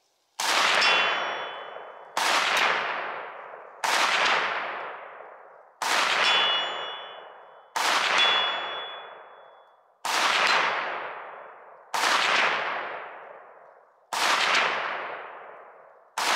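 Nine slow aimed shots from a 7.62x39 AK-pattern pistol with a 3D-printed receiver, about one every two seconds, each trailing a long echo that dies away. A short, high metallic ring follows a few of the shots: steel targets at 100 yards being hit.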